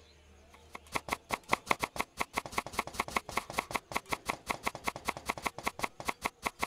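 A large steel knife chopping an onion on a wooden plank: fast, even strokes, about six or seven a second, starting just under a second in.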